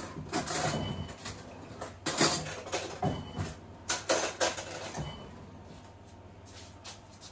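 A spoon stirring and clinking in a jar of apple cider vinegar, with knocks of things on the worktop. The clinks ring briefly three times, and the clatter is loudest about two seconds in and again around four seconds, then dies down.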